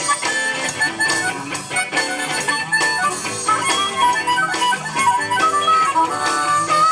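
Blues harmonica played cupped against a vocal microphone, taking a lead over an electric guitar and a steady beat.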